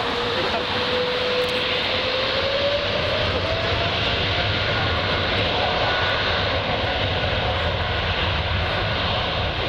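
Boeing 777 freighter's General Electric GE90 turbofans running as the jet taxis, a steady jet roar with a low rumble and a thin whine that rises in pitch about two to three seconds in and then holds.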